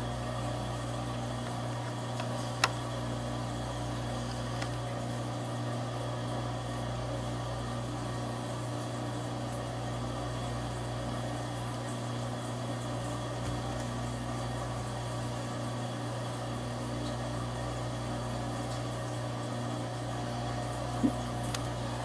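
A steady low mechanical hum in a room, with a single sharp click about three seconds in.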